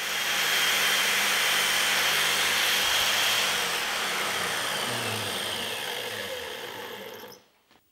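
Handheld electric drill spinning a fine wire wheel brush against a small steel bolt, the bristles scrubbing it clean, with a steady motor hum underneath. The sound fades a little, then cuts off suddenly near the end.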